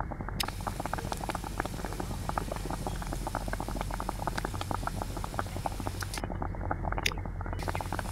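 Water boiling in a steel wok, steaming a bowl of egg: a dense, fast crackle of popping bubbles over a steady low hum.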